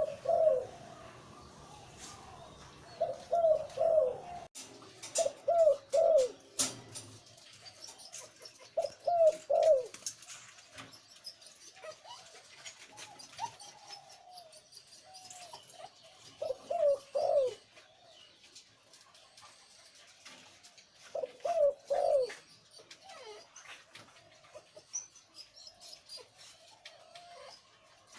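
Male zebra dove cooing: short phrases of two or three quick notes, repeated every few seconds. A sharp click comes about six and a half seconds in.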